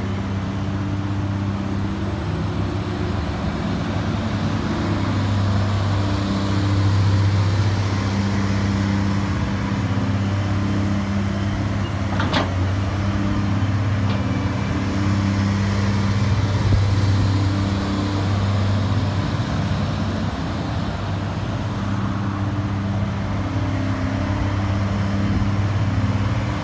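Caterpillar 330D L crawler excavator's C9 diesel engine idling steadily, with a single sharp tap about twelve seconds in.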